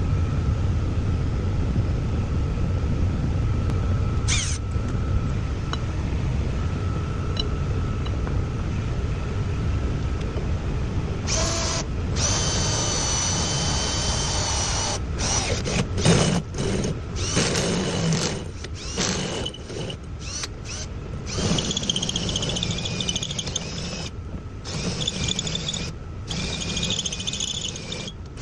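Power drill driving a hole saw into thick metal. A steady motor hum turns, about eleven seconds in, into a high squeal as the teeth cut, broken by repeated brief stops and restarts.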